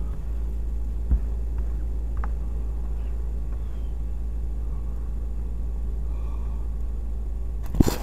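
A car engine idling, heard as a steady low rumble from a dashcam inside the cabin. There is a small knock about a second in, and a short, sharp click just before the end.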